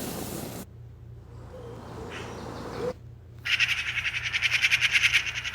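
Nature sound-effect previews playing one after another. A rushing noise cuts off just over half a second in, faint low hoots follow, and from about three and a half seconds a fast, steady chirping trill sets in at about ten pulses a second.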